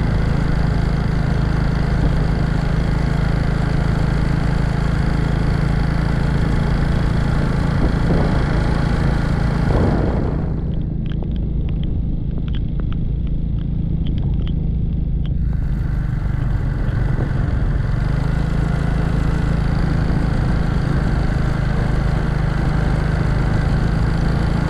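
A vehicle's engine runs steadily under way, with a deep drone and wind and road noise. About ten seconds in, the hiss falls away for around five seconds and a few light ticks are heard, then the steady noise returns.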